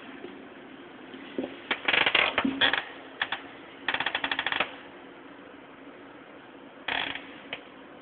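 Bursts of sharp mechanical clicking and rattling: an irregular cluster, then a fast even run of about a dozen clicks in the middle, and two single clicks near the end, over a steady low hum.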